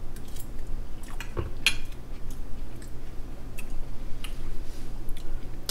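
A fork clinking and scraping on a plate, a handful of light, scattered clicks, one ringing briefly, over a low, steady hum.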